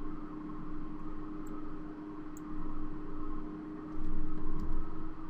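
Steady low electrical hum with faint hiss, with a few faint clicks scattered through it.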